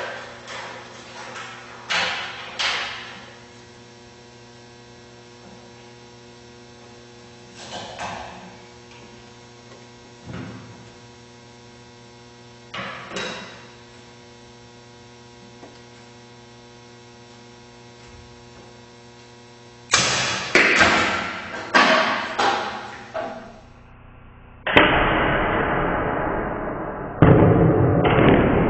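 Steady electrical hum under scattered knocks and thuds from the projectile-launcher apparatus being handled, with a quick cluster of knocks about twenty seconds in. Near the end come two loud sudden noises, each trailing off over a couple of seconds.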